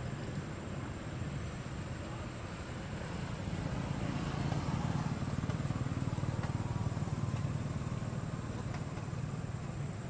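Low rumble of a motor vehicle, swelling about four seconds in and easing off near the end.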